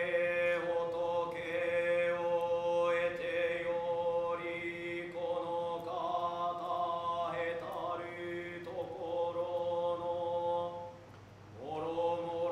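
Nichiren Buddhist monks chanting in unison, a chorus of men's voices holding long drawn-out notes that slide slowly in pitch. The chant breaks off briefly near the end for a breath and then starts again.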